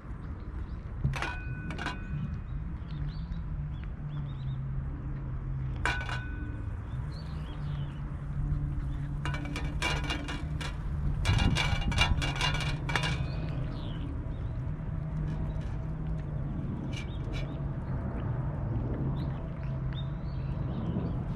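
Cat licking and eating from a metal dish: scattered clinks, each with a short ring of the dish, then a dense run of licking clicks and clinks about ten seconds in, over a steady low hum.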